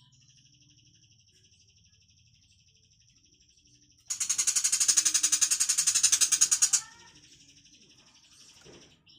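Tiger shrike giving a loud, very rapid rattling chatter for about three seconds, starting about four seconds in, over a faint, continuous high trill.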